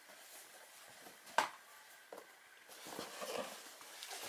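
Faint handling noise: a cloth shoe dust bag rustling against a cardboard shoe box as a sneaker is lifted out, with one sharp tap about a second and a half in.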